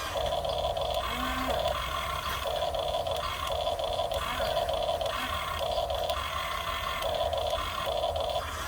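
Huina 1550 RC excavator's small electric motors whining in short bursts, about eight times and roughly once a second, as the controls are worked in quick stops and starts.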